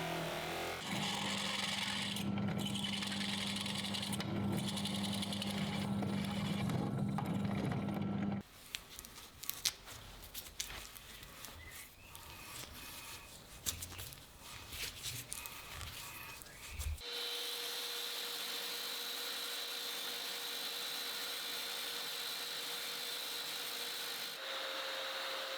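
Workshop tool work in three abrupt sections: a power tool running steadily, then scattered clicks, knocks and scraping of hand work, then a steady even whine of a machine.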